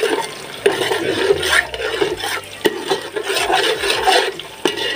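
Sliced onions frying in hot oil in an aluminium pot as they are stirred with a spoon, with a wet sizzling hiss; the spoon knocks and scrapes against the pot a few times.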